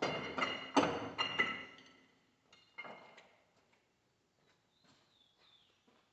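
Metal tools and engine parts clanking during cylinder head removal on a tractor diesel engine: a quick run of sharp metallic knocks with a ringing tone in the first two seconds, the loudest about a second in, one more knock a little later, then only faint clicks.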